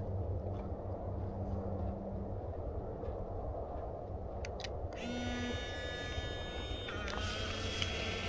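Fujifilm Instax Mini 99 instant camera: a few quick clicks of the shutter being fired about four and a half seconds in, then a steady whirring whine as the motor ejects the print. A steady low rumble sits underneath.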